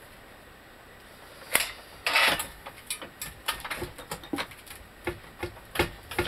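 Metal vise and pressing tools being handled and reset: a sharp click, a brief scrape, then a run of irregular light knocks and clicks.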